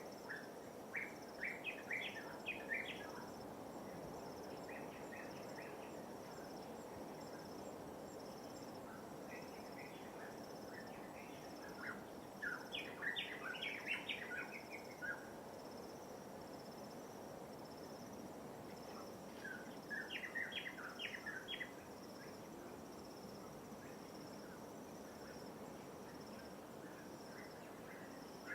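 A songbird sings short phrases of quick chirping notes, one every few seconds, with the longest phrase near the middle. Under it runs a steady wash of light waves and a continuous high, pulsing insect trill.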